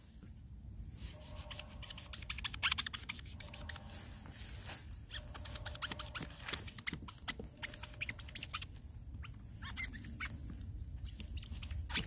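Fresh resinous polypore brackets being cut and pried off a log bark with a knife and gloved hands: a busy run of small crackles, scrapes and squeaks.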